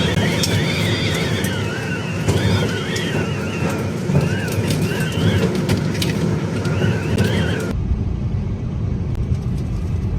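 Gale-force wind howling, with a wavering high whistle and scattered rattles and ticks. About three-quarters of the way through it cuts abruptly to a deep buffeting rumble of wind on the microphone.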